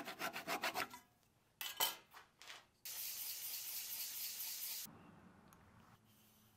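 Sandpaper rubbing on a small turned fir wood goblet by hand. There is a quick run of short strokes, then a few separate scrapes, then about two seconds of steady sanding before it dies away.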